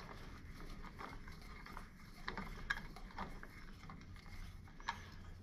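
Faint, scattered small metallic clicks as a motorcycle mirror's threaded stem is twisted by hand off its mount, over a low steady hum.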